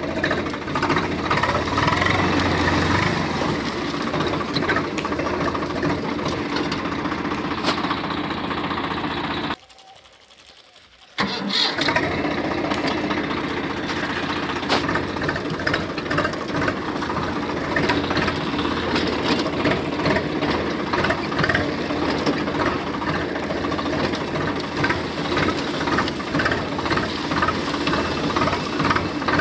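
Small electric toy motor and its exposed gear train whirring and rattling as a homemade mini tractor drives along towing a trolley. The sound cuts out for about a second and a half a little before the middle, then resumes.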